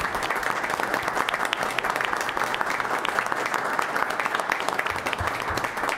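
Applause from a small seated audience of about twenty people, with the separate hand claps distinct.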